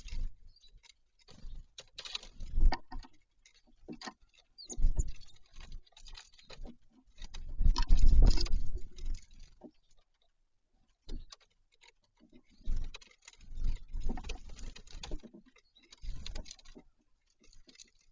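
Irregular tapping, scratching and dull knocks on a bird feeder close to the microphone, in bursts with short quiet gaps, as birds peck and move about on it.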